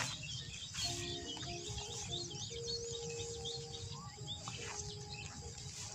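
Open-field ambience of many small birds chirping in quick, repeated high chirps, over a steady low wind rumble on the microphone. A few faint held notes at changing pitches sound underneath.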